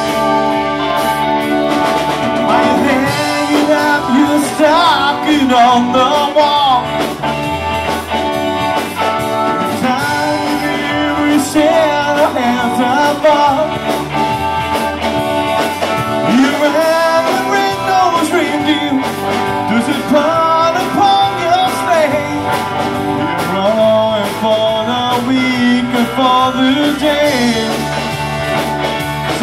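Live rock band playing: electric guitars, bass, drums and keyboard, with a lead melody line bending in pitch over a steady full backing.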